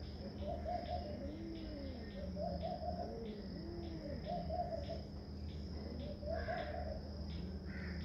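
Insects, crickets by their sound, chirping steadily in a high pulsing trill, a few pulses a second. Over them, low rising-and-falling calls recur every couple of seconds.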